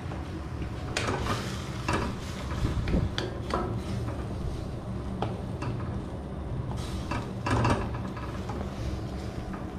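A wooden spatula stirring and tossing noodles in a small wok, scraping and knocking against the pan at irregular moments, loudest near the end, over a steady low rumble.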